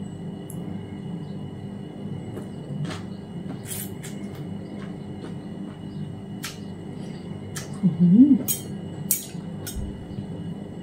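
Eating at a table: a few sharp clinks of a metal fork and spoon against a plate and bowl, with chewing of rice noodles and papaya salad, over a steady low hum. About eight seconds in comes a short pitched sound that bends up and down, the loudest moment.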